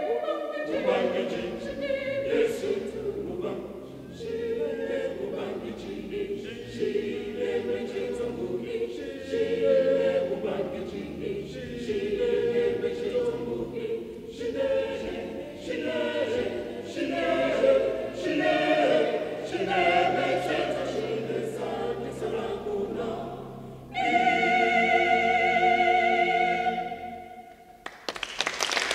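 Mixed choir singing unaccompanied. The piece closes on a long held chord with vibrato a few seconds before the end, which cuts off cleanly, and applause breaks out at the very end.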